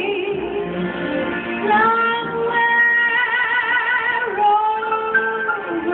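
A woman singing into a microphone. About two seconds in she holds a long note with vibrato.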